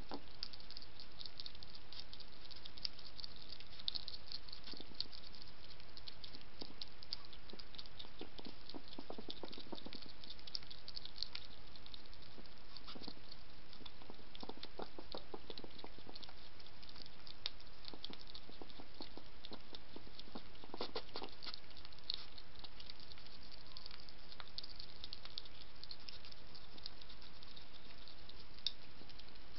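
European hedgehog eating dry kitten biscuits off the ground: a run of small crunching clicks that comes in denser bursts every few seconds, over a steady hiss.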